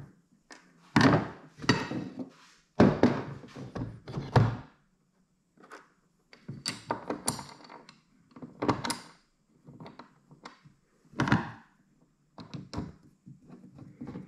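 Irregular knocks and clatter of hand tools and plastic mounting parts being handled and set down on a hard plastic kayak deck, about a dozen separate thunks with short pauses between.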